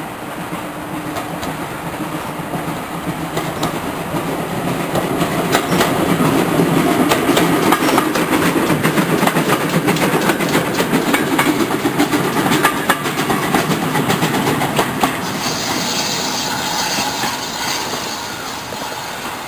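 Steam auto train (a GWR 0-6-0 pannier tank sandwiched between two autocoaches) passing close by, its wheels clicking over the rail joints. The sound builds as it approaches, is loudest through the middle while the coaches go past, then fades as it pulls away.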